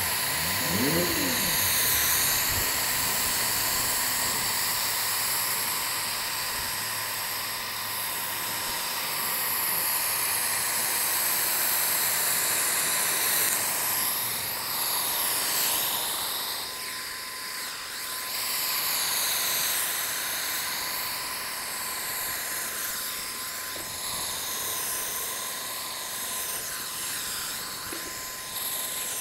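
Wagner Flexio 890 HVLP paint sprayer running steadily while spraying stain onto fence boards. Its turbine gives a constant whine under a high rush of air from the spray gun, and the hiss swells and fades as the gun sweeps back and forth.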